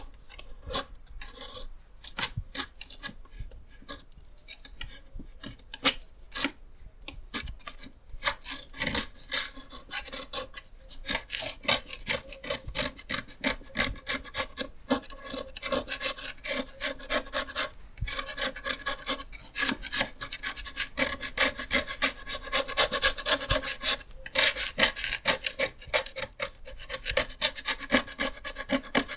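Paint being scraped off a surface with a scraper in quick, repeated rasping strokes. The strokes stop briefly a few times and grow busier and louder after the first several seconds.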